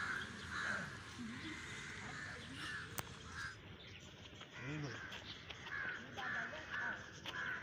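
Crows cawing repeatedly in short runs of harsh calls.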